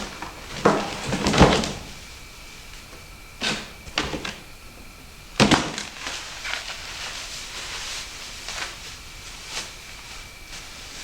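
Knocks and clunks of pressure-washer parts being handled and fitted together during assembly. A cluster of bumps comes in the first two seconds, the loudest, then a few single knocks, with fainter ones toward the end.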